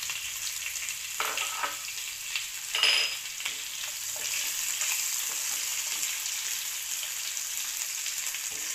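Sliced onions frying in hot oil with cumin seeds in a nonstick pan: a steady sizzle, stirred with a silicone spatula, with a few louder strokes of the spatula, the loudest about three seconds in.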